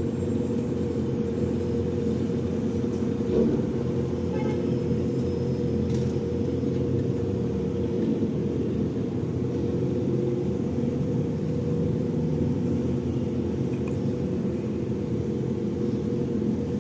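A steady low rumble that does not change, with a few faint ticks.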